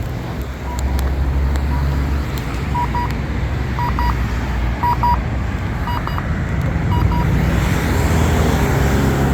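Accessible pedestrian signal push button sounding its locator beep about once a second, several of the beeps coming as quick double or triple pips. Steady road traffic runs underneath and swells louder near the end as a vehicle passes.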